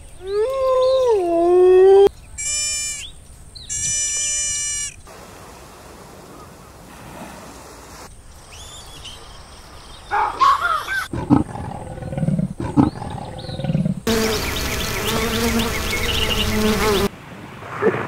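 A wolf howling: one long howl that drops in pitch at its end, then two shorter, higher howls. About ten seconds in, a monkey's choppy calls and chatter follow, growing denser and louder near the end.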